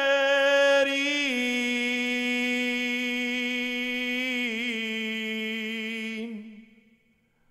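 A man singing unaccompanied, holding one long note that steps down slightly a little after a second in and wavers briefly past the middle, then fades out about six seconds in.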